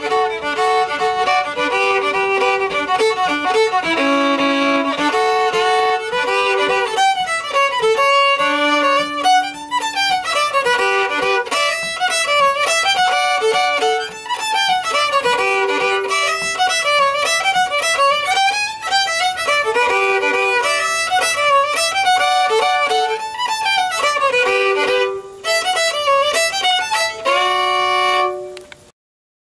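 Solo fiddle playing a tune, the bow pulsing as it speeds up and slows down within strokes. It ends on a long held note near the end, then stops.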